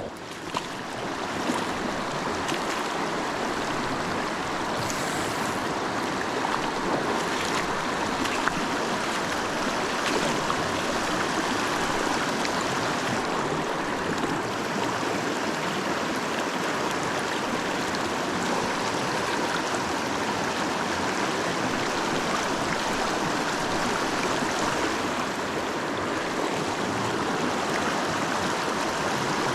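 Creek water rushing and babbling steadily over the streambed.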